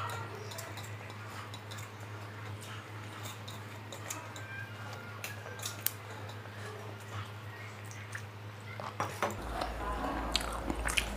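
Eating sounds: chewing and mouth noises as noodles and momos are eaten by hand, with scattered light clicks and scrapes of fingers and food on stainless-steel plates, busier near the end.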